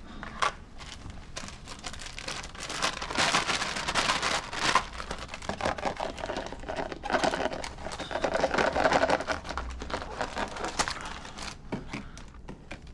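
Clear plastic bag crinkling and rustling in gloved hands as an item is slipped into it, an irregular run of crackles throughout.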